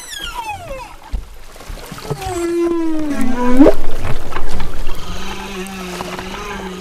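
Humpback whale song. A falling call comes first, then a long moan that slides down and sweeps sharply upward about three and a half seconds in, then a steady low held tone.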